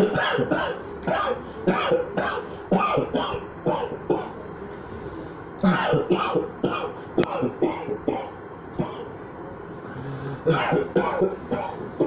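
A man coughing on purpose in runs of short, forceful coughs, about three a second, in three runs with brief pauses between. These are forced coughs on each out-breath, meant to bring phlegm up out of the chest.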